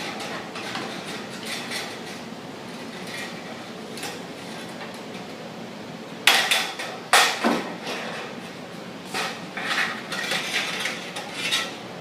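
Thin sheet-metal plaster ground being handled and bent by hand, with small clicks and rustling. Two loud metallic clanks come about six and seven seconds in, followed by a run of lighter metal clatter.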